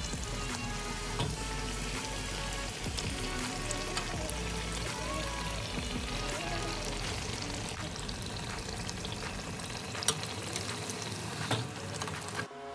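Neypathiri, a rice-flour flatbread, deep-frying in a pan of hot oil, bubbling and sizzling steadily, with a couple of sharp clicks near the end. Background music plays along.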